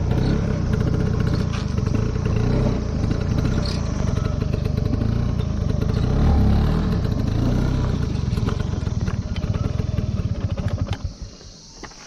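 Scooter engine running as it rides along, its pitch rising and falling a little, then dropping away about eleven seconds in.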